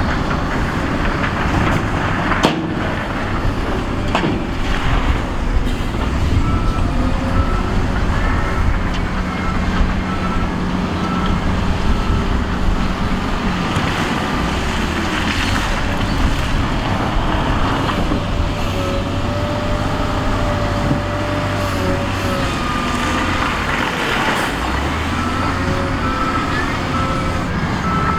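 Heavy diesel earthmoving machinery running and working under load, its engines rising and falling in pitch, with a few sharp knocks. A reversing alarm beeps steadily for a few seconds about a quarter of the way in and again near the end.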